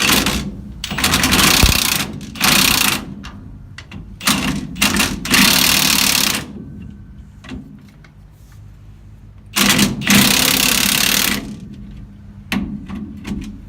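Impact wrench hammering nuts down tight, in about seven bursts of rattling lasting from half a second to two seconds each, with short pauses between.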